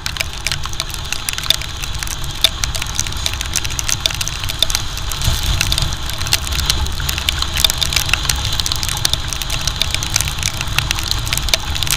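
Wind rumbling over the microphone of a motorcycle riding at speed on a wet road, with many raindrops ticking sharply on the camera housing and the engine running underneath.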